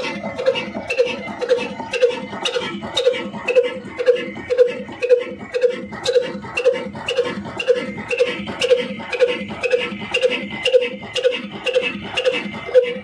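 Old horizontal single-cylinder stationary diesel engine of the Ruston type, with a large flywheel, running steadily. It chugs in an even beat of about two strokes a second, with a sharp click on each beat.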